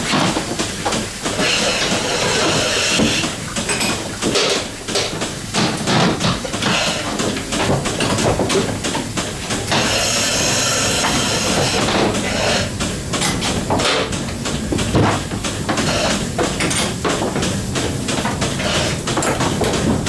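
Goat milking parlour machinery at work: a jumble of metal clanks and clicks, with a burst of hissing air about ten seconds in that lasts about two seconds.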